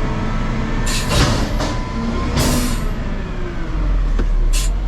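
Heavy truck running, heard from inside the cab as a steady low rumble, with three short hissing bursts: about a second in, about two and a half seconds in, and near the end.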